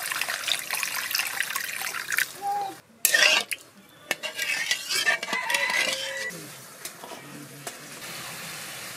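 Water poured into a karahi of hot fried spice paste, sizzling and crackling hard, then a wooden spatula stirring and scraping the paste around the metal pan. A loud sudden burst of sizzle comes about three seconds in, and the frying grows quieter after about six seconds.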